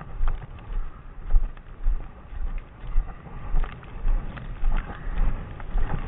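Footsteps walking over a snow-covered road, about two steps a second, each a low thud.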